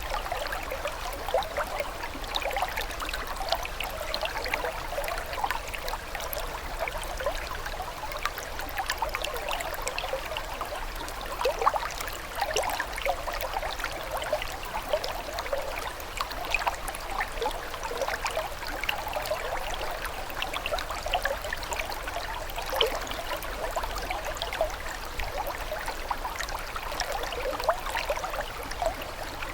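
Running water trickling steadily, like a small stream, with a dense patter of small, quick splashes.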